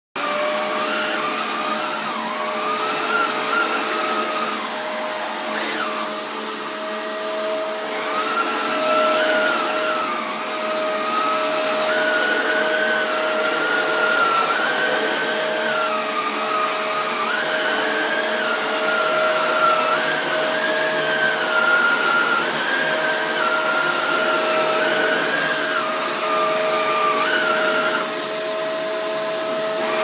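Shark Rotator Powered Lift-Away upright vacuum cleaner running while pushed over carpet. Its motor gives a steady whine, with a second, higher tone that shifts up and down every second or two.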